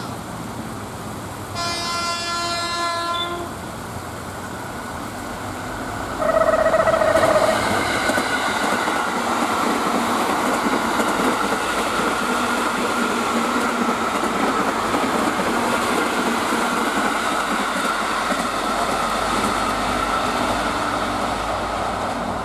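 A train horn sounds for about two seconds, then again about six seconds in, louder and as a single lower note. The train then runs past with a steady rumble and wheel noise.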